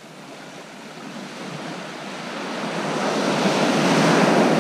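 Sea surf on a shingle beach: a wave builds over about four seconds to a peak near the end, then begins to ease.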